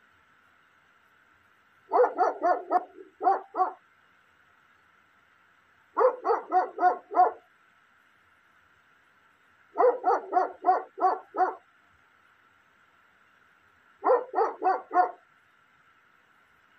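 A dog barking in four bouts of quick barks, each bout about a second and a half long and a few seconds apart, over a faint steady high hum.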